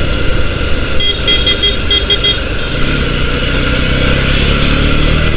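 A vehicle horn sounded in a quick rhythmic pattern, about seven short toots over a second and a half, over steady road and wind noise. An engine note climbs a little in the second half.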